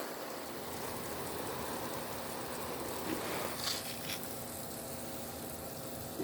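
Steady rain falling, an even hiss, with a few faint short sounds about three to four seconds in.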